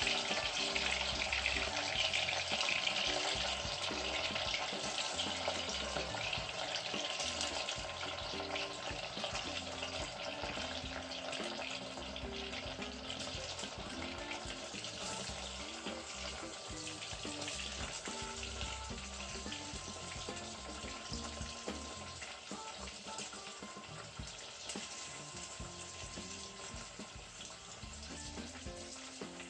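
Cubes of raw meat sizzling in very hot oil in a pot as more pieces are dropped in, searing so that a crust forms at once. The sizzle slowly fades as the pot fills with meat.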